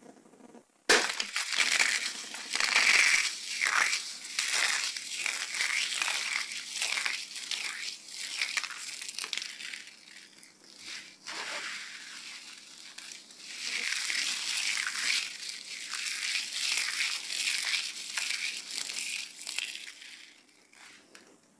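Dry soap crushed and crumbled by hand: dense crackling crunches that start suddenly about a second in, ease off around the middle, pick up again, and fade near the end.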